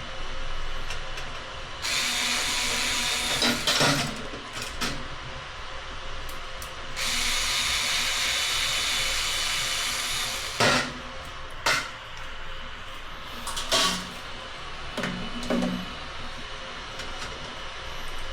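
Cordless power screwdriver running in two steady bursts, the first about two seconds long and the second about three and a half, while screws are driven or backed out of a ceiling light fitting. Several sharp knocks and clicks of handling come between and after the bursts.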